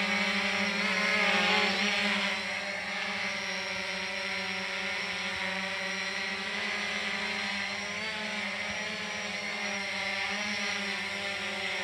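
FIMI X8SE quadcopter's four propellers humming steadily as it hovers low, a buzzing drone with several pitches that waver slightly. It is louder for the first two seconds, then softer as the drone drifts away.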